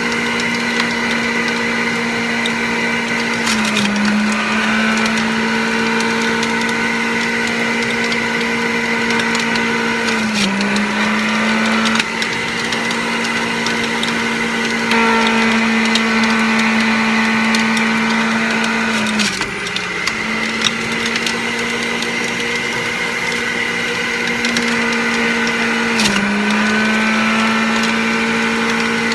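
Centrifugal juicer running on its low speed, shredding spinach and kale with a crunching noise. Its motor whine drops in pitch briefly four times, bogging as greens are pushed in, then picks back up.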